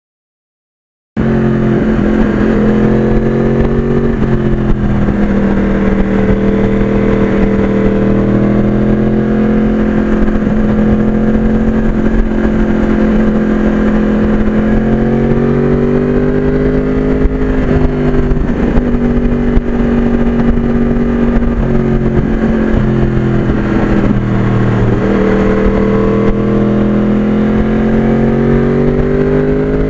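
Motorcycle engine running under way at a steady pace, its pitch rising and falling gently with the throttle. It cuts in abruptly about a second in, after silence.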